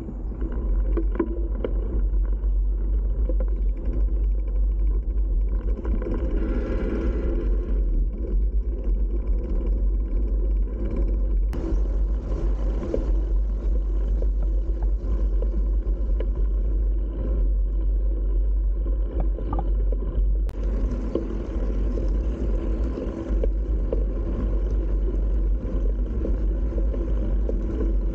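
Steady low wind rumble on a handlebar-mounted camera's microphone, with tyre and road noise from a B'Twin Riverside 900 hybrid bicycle riding on paved paths.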